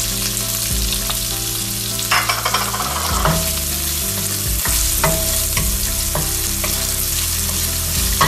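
Chopped red onion sizzling in hot oil in a stainless steel pan, sautéing as it is stirred. A wooden spatula scrapes and knocks against the pan a few times, over a steady low hum.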